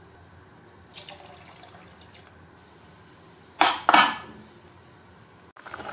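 Metal pressure cooker lid being handled on the pot: a light clink about a second in, then a short double clatter of metal on metal about three and a half seconds in.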